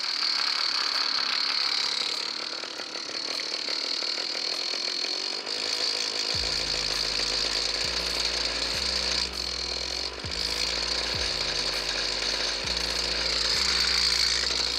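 Two-stroke engine of an Echo RM 5000 backpack brushcutter running steadily with a high whine. The machine idles but stalls and floods when the throttle is opened, a fault the owner puts down to dried-out carburettor diaphragms.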